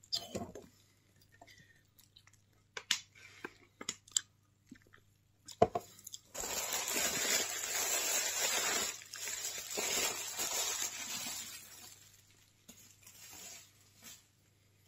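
Plastic bubble wrap being handled. A few scattered crackles and taps come first, then about six seconds of loud, continuous crinkling and rustling as the sheet is pulled out and crumpled. The noise dies away near the end.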